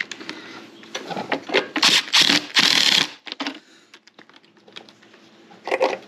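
Hand ratchet clicking in several short, loud runs between about one and three seconds in, then a few scattered ticks, as the engine's valve cover bolts are tightened.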